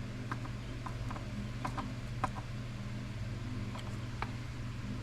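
Scattered faint clicks and taps of a hand screwdriver driving small screws into a plastic gauge-cluster housing, over a steady low hum.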